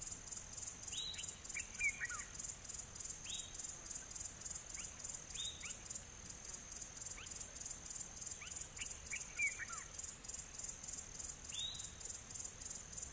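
Nature ambience: a steady, high-pitched insect chorus pulsing about three times a second, with short, downward-sliding bird calls every second or two.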